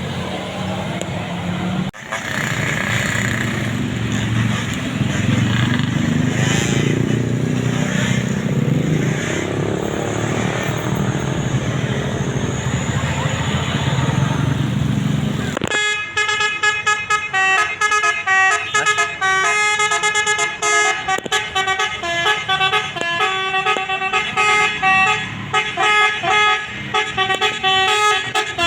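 Passing bus engines and street noise with voices for about the first half. Then, after a sudden cut, a Basuri multi-tone musical bus air horn plays a 'telolet' melody of quickly changing notes.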